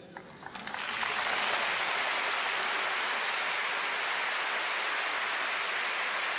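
Large arena crowd applauding, swelling up within the first second and then holding steady.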